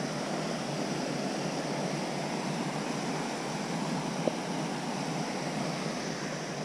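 Steady outdoor wash of noise from flowing river water and light rain, with one small sharp click about four seconds in.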